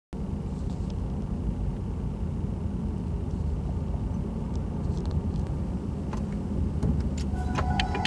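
A steady low rumble, then a run of sharp clicks over the last two seconds as the Honda e's electrical system powers up, with a steady tone setting in just before the end.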